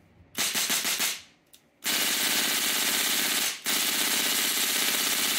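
WE HK416 airsoft rifle fitted with a Daytona HPA recoil kit, test-firing on full auto. A short burst comes about half a second in, then two long bursts follow almost back to back.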